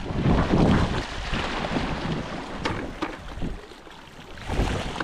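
Wind gusting on the microphone over a steady wash of sea water, the gusts loudest in the first second and again near the end.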